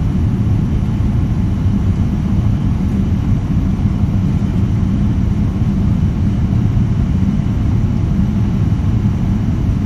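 Steady low rumble of a Boeing 787 Dreamliner's engines and airflow, heard from inside the passenger cabin as the airliner climbs after takeoff.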